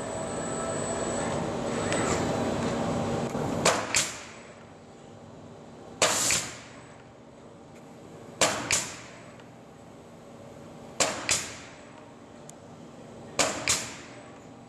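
Robot-held Duo-Fast pneumatic framing nailer driving nails into a wooden beam, five shots about two and a half seconds apart. Each shot is a sharp crack followed a moment later by a second short snap. The shots are preceded by about four seconds of steady whirring from the industrial robot's drives.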